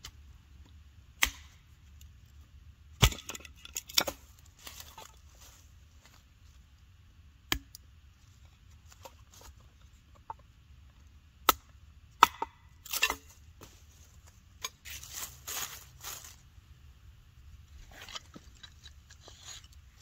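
Hatchet chopping and splitting a dry piece of 2x4 lumber into kindling: sharp wooden knocks at irregular intervals, the loudest a little past the middle. Softer rustling and crinkling of dry leaves and wood follows near the end.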